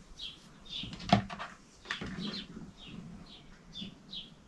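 A small bird chirps repeatedly, short high notes about twice a second, over soft rustling of fabric being smoothed on a cutting mat. A single sharp knock sounds about a second in.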